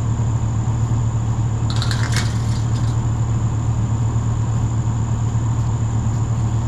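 A vehicle engine idling with a steady low hum. About two seconds in there is a brief burst of sharp metallic clicks and rattles, as the steel farm gate's latch or chain is worked. A thin high whine runs steadily underneath.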